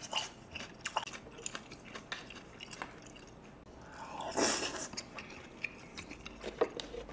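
Close-miked eating of beef rib soup with rice: wet chewing with scattered mouth clicks, and about four seconds in a louder slurp as a spoonful goes into the mouth.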